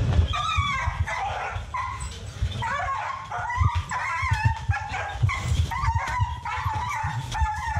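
A cornered dog yelping and whining over and over, short pitched cries one after another, as it is being caught with a catch net. Low knocks and handling noise run underneath.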